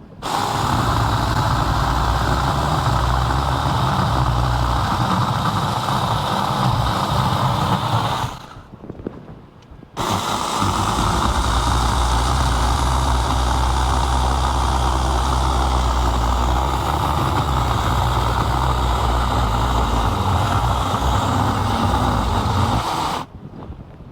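Small battery-powered mini chainsaw running at full speed and cutting into a tree limb, in two long runs with a pause of about two seconds between them, stopping shortly before the end.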